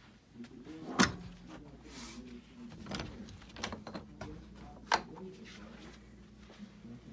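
Sharp knocks and clicks from a door being handled and walked through, the loudest about a second in and another about five seconds in, with quieter shuffling between, over a low steady hum.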